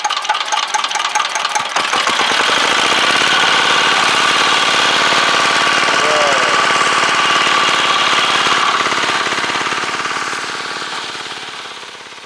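Small diesel water-pump engine starting up: its separate firing beats quicken over the first couple of seconds into a steady run. Water gushes from the outlet pipe as it pumps the fish pond down. The sound fades out near the end.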